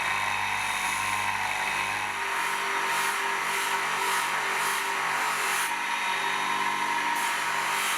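Electric power tool running steadily at a workbench. A high rasp pulses about twice a second over its motor hum, pauses midway, then resumes.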